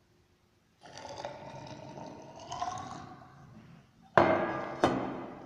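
Mercury pouring through a funnel into a glass measuring cylinder, the filling note rising in pitch for about three seconds. Near the end come two sharp ringing clinks of metal or glass, the first the loudest sound.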